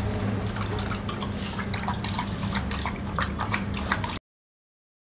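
Buttermilk pouring from a plastic jug into a steel bowl, followed by a dog lapping it up in a run of quick wet laps. The sound cuts off suddenly about four seconds in.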